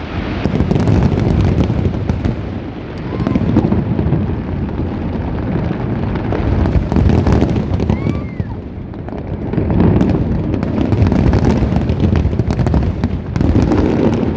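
Fireworks display: aerial shells bursting in a continuous run of deep booms overlaid with crackling, swelling and easing every few seconds.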